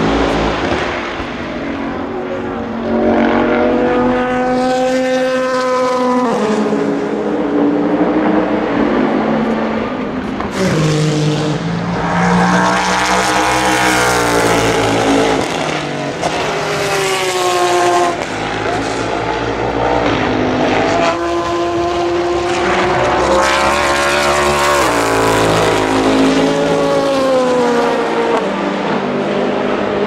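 NASCAR Next Gen Chevrolet Camaro ZL1 race car's pushrod V8 at race speed. It revs up through the gears, its pitch climbing and dropping back at each shift, several times over.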